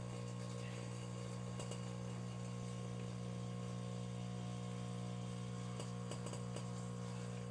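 Microwave oven running with a steady electrical hum, with a few faint crackles from sparks arcing inside the cavity: the oven is failing and burning out.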